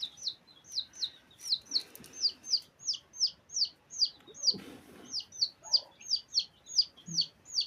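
A small bird chirping over and over, about three short falling chirps a second, with a brief rustle about halfway through.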